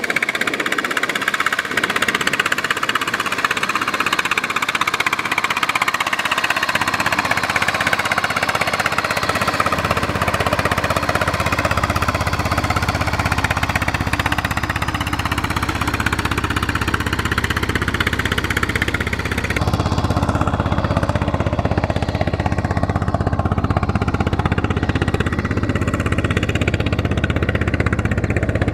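Single-cylinder diesel engines of cage-wheeled rice-paddy tractors running steadily under load. The sound changes abruptly about two-thirds of the way through.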